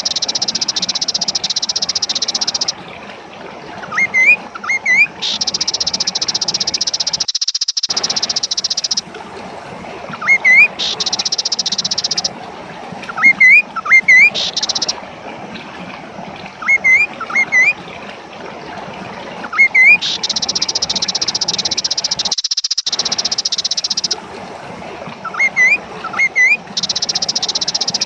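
Kaso-kaso bird song played as a lure track: long, high, buzzy reeling phrases lasting several seconds each, alternating with quick pairs of short rising chirps. The sound cuts out briefly twice.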